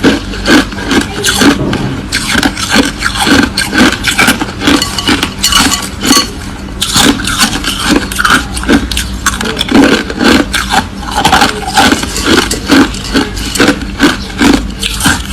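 Loud crushed ice being chewed: rapid, irregular crunching, several bites a second.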